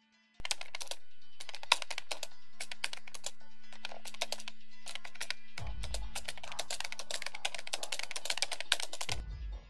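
Rapid typing clicks in short bursts about once a second, then one long unbroken run, over background music with a steady low drone. A deep bass hit lands as the long run begins and another as it ends.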